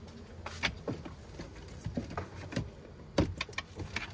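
Scattered clicks and knocks from cargo-area cover and trim pieces being handled and shifted in the back of a 2019 Subaru Ascent. One sharper knock comes about three seconds in.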